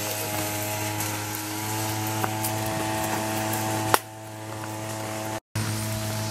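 Background music: a steady held chord over a low drone, unchanging, with a brief dropout near the end.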